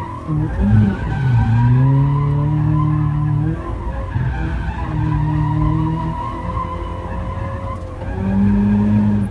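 1990 Mazda Miata's 1.6-litre four-cylinder engine revving hard in first gear in three pulls, its pitch rising and dropping back each time, with tyres skidding as the car slides.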